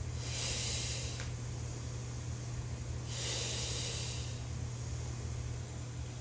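A woman exhaling hard through her mouth during Pilates leg circles: two breathy hisses, each about a second long, one near the start and one about three seconds in. Each exhale is timed to the leg circling outward, to engage the abdominals.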